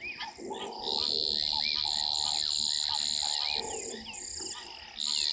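Hadada ibises giving four harsh, rasping calls about a second apart, over a steady high-pitched drone and small chirps.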